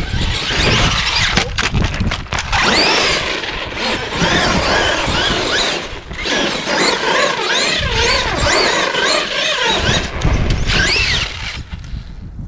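Traxxas E-Maxx's VXL 3500 kV brushless motor on 4S LiPo whining up and down in pitch as the throttle is punched and let off again and again, over drivetrain and tyre noise. It dies away near the end as the truck stops.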